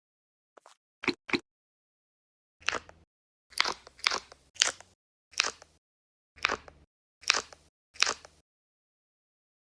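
Squishy NeeDoh stress toys being squeezed and handled: about ten short, noisy squishes, each under half a second, with the first couple faint.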